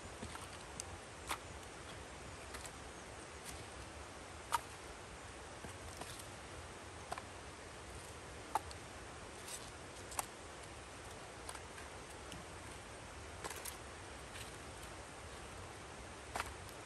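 Split firewood pieces knocking together as they are picked up off the snow and added to an armload: separate sharp wooden clacks every second or two, the loudest about four and a half seconds in, over a faint steady hiss.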